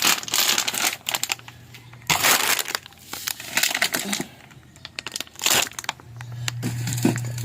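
Plastic and cardboard packaging being handled: crinkling and rustling in a few irregular bursts. A low steady hum comes in near the end.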